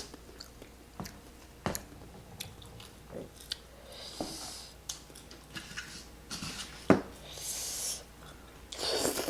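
Close-up chewing of spicy Korean rice cakes, with soft wet mouth clicks and a few short breathy hisses. A single sharp click about seven seconds in is the loudest sound.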